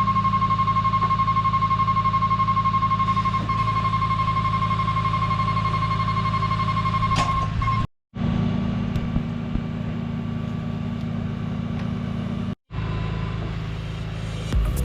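Machinery engine running steadily with a steady high-pitched tone over it, louder in the first half; the sound cuts out completely twice for a moment.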